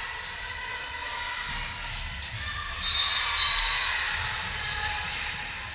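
Volleyball game in a large echoing gym: overlapping players' and spectators' voices and low thuds, with a short shrill referee's whistle about three seconds in, signalling the next serve.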